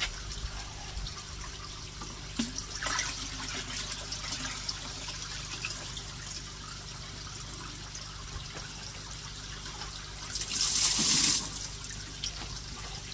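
Small pond fountain jet spraying water that falls back onto the pond's surface as a steady patter of drops. Near the end comes a louder splash of water lasting about a second.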